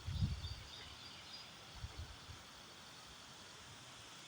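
Gusty wind from a coastal storm, a faint steady hiss with low rumbles of wind buffeting the microphone in the first half second and again about two seconds in.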